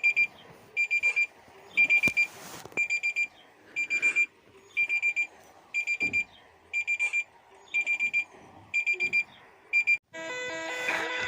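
Electronic alarm beeping in quick bursts of four high beeps, one burst about every second, in the pattern of a digital alarm clock. Music with held chords cuts in near the end.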